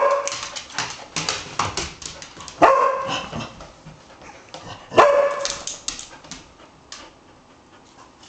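Dog barking three times, about two and a half seconds apart, with light clicks between the barks.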